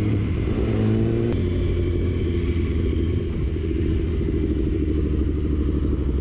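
BMW S1000RR's 999 cc inline-four engine running steadily through an Akrapovic exhaust. The sound changes abruptly about a second in and then carries on evenly, without revving.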